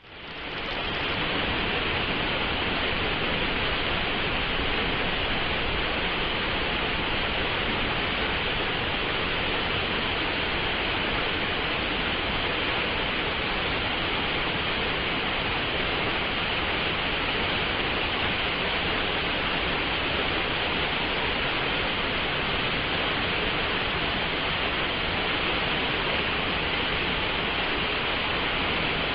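Stream water rushing and splashing in a steady, dense hiss that fades in over the first second.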